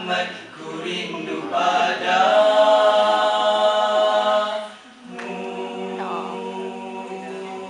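Male a cappella group of four voices singing a nasheed in harmony. A loud held chord breaks off just before five seconds in, then a softer chord is sustained.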